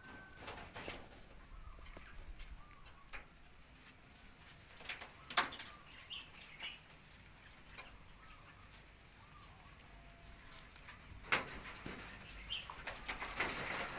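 Young monkeys moving about on corrugated roofing sheets: a few sharp knocks and rattles, the loudest about a second in, midway and near the end, over faint short chirps.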